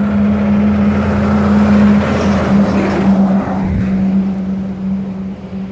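Diesel truck pulling a trailer driving past close by, its engine humming steadily and growing loudest about two seconds in, then a rush of tyre and road noise as it goes by and fades.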